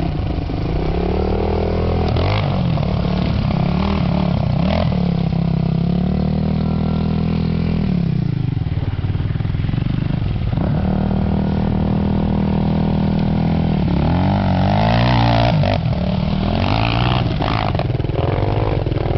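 Enduro dirt bike engine revving up and down as it is ridden on a steep dirt hill climb. The revs sag about eight seconds in, pick up again, and rise sharply in several quick pulls near the fifteen-second mark.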